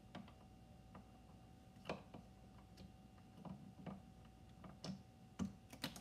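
Near silence with faint, irregular small clicks and taps, about eight of them, the loudest near the end, over a faint steady hum.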